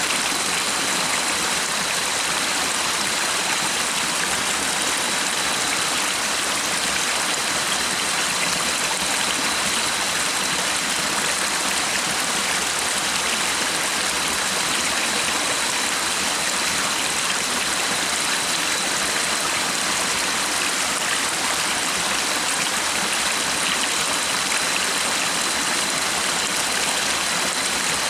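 Stream water flowing steadily, an even, unbroken rushing.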